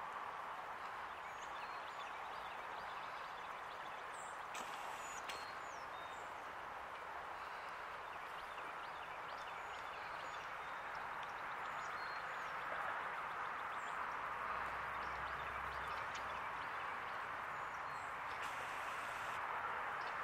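Small birds chirping in short, scattered calls over a steady rushing hiss of outdoor background noise that grows a little louder about halfway through.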